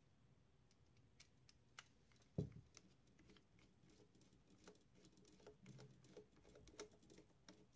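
Faint clicks and small scrapes of a screwdriver working the screws on a Tascam 464 cassette transport's metal chassis, with one louder knock about two and a half seconds in.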